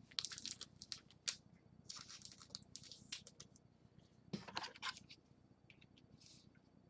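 Rummaging through a drawer of trading-card supplies for a thicker top loader: faint, scattered clicks and rustles in several short bursts.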